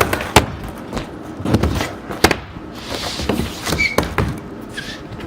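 Skateboard on a ramp: wheels rolling with a rough rumble and about five sharp clacks of the board striking the surface.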